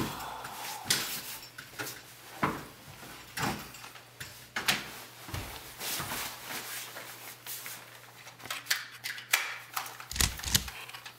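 Irregular knocks, scuffs and clothing rustle from people moving and handling a body on a floor in a small room, over a faint steady hum.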